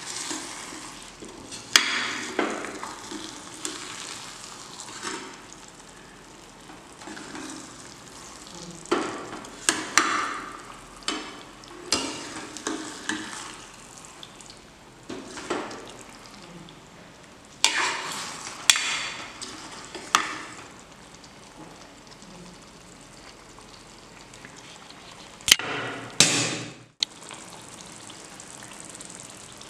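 A metal spatula stirring a thick egg masala gravy in a pan, clicking and scraping against the pan at irregular moments, over a steady sizzle of the curry simmering.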